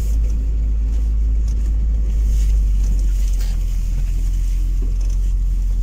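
Steady low rumble of a car heard from inside the cabin as it rolls slowly along an unpaved dirt road.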